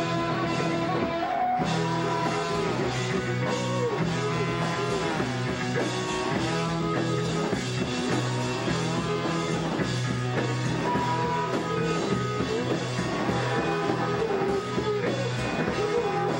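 Rock music from a live band: guitars and drums, with a wavering melody over a steady low drone.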